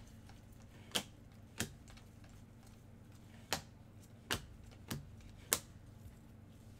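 Panini Prizm basketball trading cards being flipped through one at a time by hand, each card snapping against the stack: six sharp clicks at uneven intervals.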